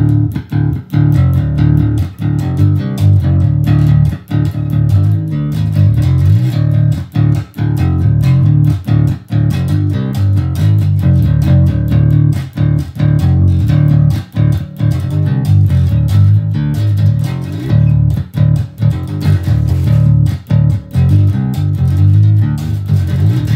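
Electric bass, a Jackson JS1M Concert Bass in Drop D, played through a Fender Rumble 25 V3 combo amp with its overdrive engaged. A busy riff of short, low notes with brief stops between phrases, carrying a little grit from the overdrive.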